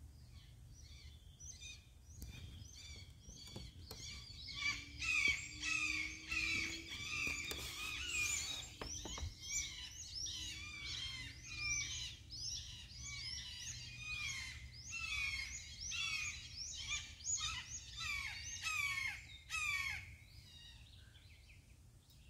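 A bird calling over and over in short, falling notes, about two a second. The calls start about a second in and stop shortly before the end, over a steady low background noise.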